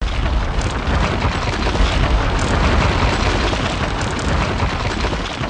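Explosion sound effect from an animated wall intro: a sudden, loud, rumbling and crackling blast that keeps going for several seconds.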